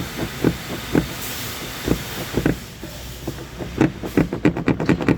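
Repeated knocks and clunks from hand-tool work on a truck's heater core housing, spaced out at first, then a rapid run of about five a second near the end, over a steady hiss.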